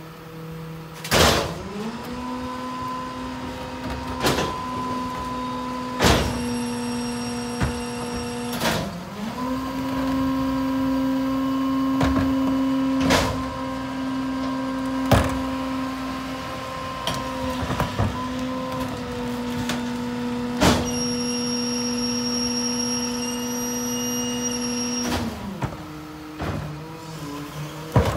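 Ez-Pack Apollo rear loader garbage truck running its packer: the engine speeds up to a steady raised idle to drive the compaction cycle, then drops back to idle near the end. Sharp bangs come every few seconds, and a high whine comes in twice.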